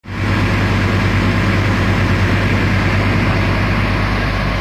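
Komatsu excavator's diesel engine running steadily with a deep, even hum.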